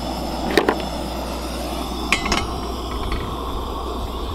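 A few sharp metal clanks, one about half a second in and a quick cluster about two seconds in, as a cast iron skillet is set onto the pan support of a single-burner propane canister stove.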